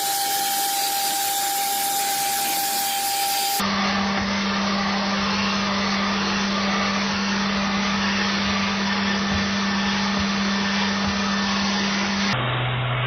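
Household vacuum cleaner motor running steadily with a constant whoosh and hum. The hum's pitch changes abruptly about three and a half seconds in and again near the end.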